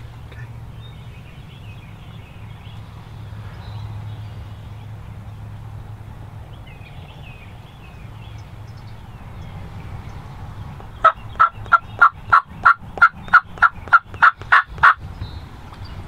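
Wild turkey yelping: a loud series of about fourteen sharp, evenly spaced notes, about three and a half a second, starting near the end. A low steady rumble and a few faint bird chirps lie under it.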